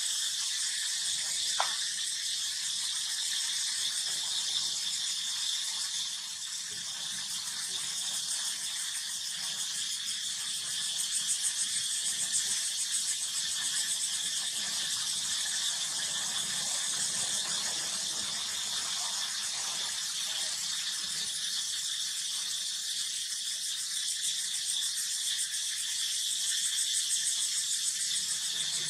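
Cicadas buzzing steadily, a high-pitched pulsing drone. A brief rising squeak about one and a half seconds in.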